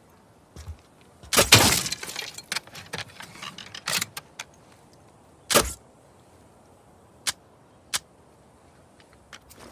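Crossbow sound effects: a series of sharp mechanical clacks and snaps. The loudest is a dense rattling clatter about a second and a half in, followed by single sharp snaps spaced a second or more apart and a few light ticks near the end.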